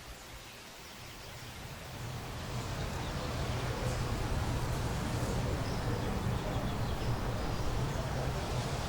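Outdoor ambience with a few faint high chirps, over which a distant vehicle's low rumble grows louder from about two seconds in and then holds steady.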